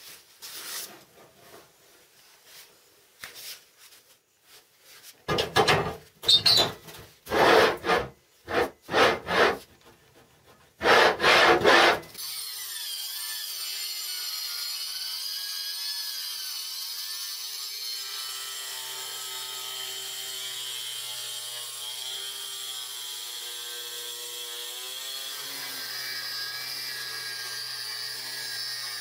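A series of short, loud rasping strokes, then an electric angle grinder running steadily as it is pushed along a guide rail, cutting a board and then steel plate. There is a high whine over the cutting noise, and its sound changes partway through.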